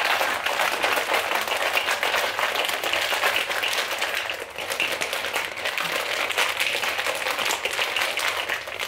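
Plastic shaker bottle shaken hard and fast, mixing drink powder into water: a dense, continuous rattle of rapid clicks that eases briefly about halfway through.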